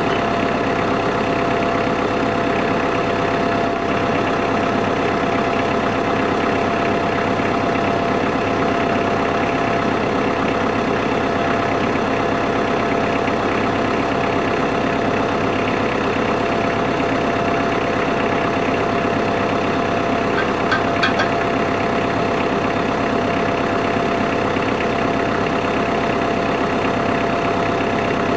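Kubota L3940 tractor's diesel engine running at a steady speed, with a steady tone held over the engine noise. A few brief clicks come about two-thirds of the way through.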